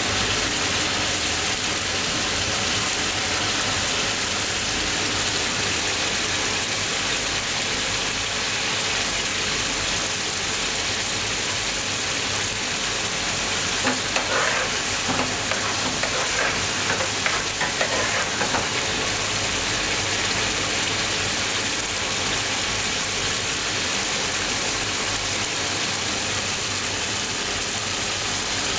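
Curry frying and sizzling in a pan with steady hiss, stirred, with a spell of clattering and scraping around the middle.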